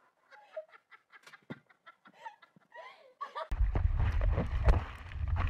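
Short, quiet pitched calls. About three and a half seconds in, a sudden switch to loud water splashing and wind rumbling on a camera mounted on a surfboard riding a breaking wave.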